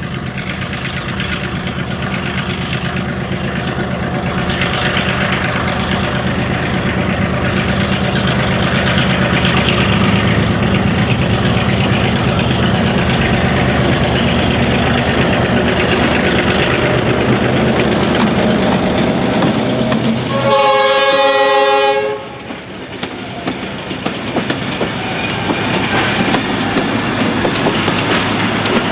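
Clyde/EMD G6B diesel-electric locomotive running under load as it draws nearer, growing louder, then sounding its horn once for about a second and a half about two-thirds of the way through. After the horn the engine sound falls away and the wooden passenger carriages roll past, wheels clicking over the rail joints.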